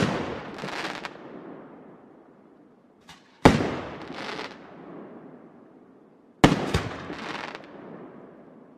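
Aerial firework shells bursting: three loud bangs about three seconds apart, the last with a second bang just after it, each trailing off over a second or two.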